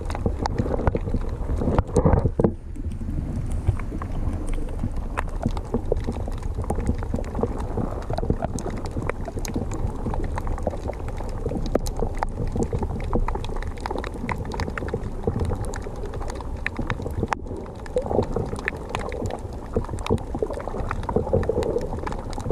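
Underwater ambience picked up by a submerged camera: a continuous low, muffled rumble of moving water with many scattered clicks and crackles, and a louder swell about two seconds in.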